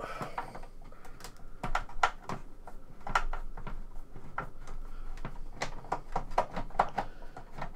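Screwdriver backing a screw out of the plastic rear case of an Amstrad PCW9256 monitor unit: a run of light, irregular clicks, several a second.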